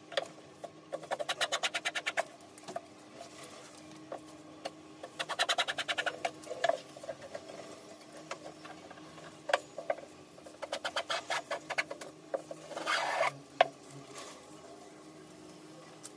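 Hand plane working the edge of a board clamped in a wooden bench vise: three bursts of rapid ticking, a short rasping stroke, then a single sharp knock about two-thirds of the way through.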